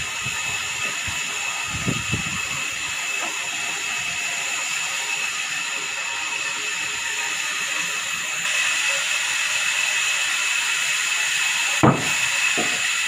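Band sawmill running with a steady high whine and hiss. A few dull knocks of heavy planks being shifted about two seconds in, and one sharp knock near the end.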